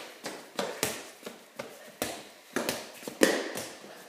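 A run of irregular knocks and thuds, about ten in four seconds, each ringing briefly in the garage; the loudest comes about three seconds in.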